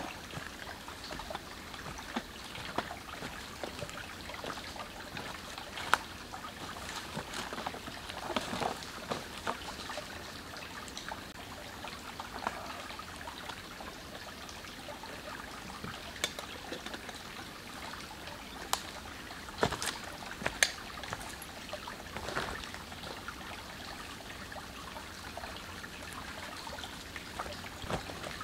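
Small bush creek trickling steadily over stones, with scattered sharp clicks and knocks as someone moves about and handles things at the water's edge.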